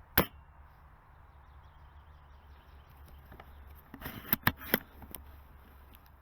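An airsoft M24 spring sniper rifle fires once with a sharp crack just after the start. About four seconds later comes a quick run of sharp metallic clicks, the bolt being worked to chamber the next shot.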